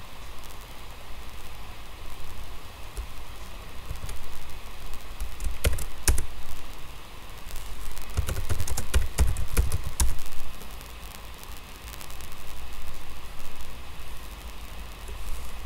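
Computer keyboard typing: a few keystrokes about five to six seconds in, then a quick run of key clacks about eight to ten seconds in. Underneath is a steady background hiss and low hum.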